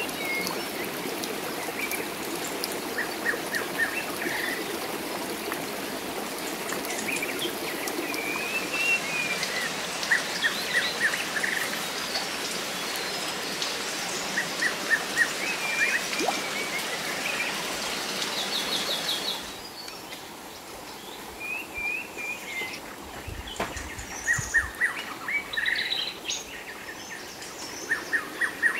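Wild birds chirping and calling over and over, in quick runs of short chirps and warbled phrases, over a steady hiss of trickling water. The water hiss drops away about two-thirds of the way through, leaving the birdsong.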